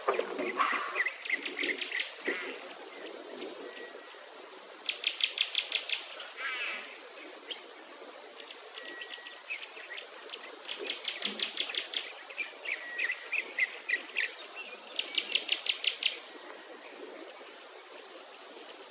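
High, rapid chirping trills from small wild creatures, coming in bursts of about a second every few seconds, over a faint, steady high whine that comes and goes.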